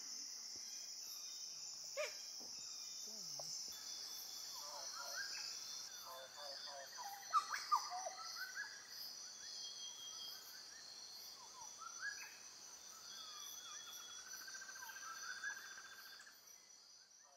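Insects droning steadily at a high pitch, with birds chirping, whistling and trilling over them. All of it fades out near the end.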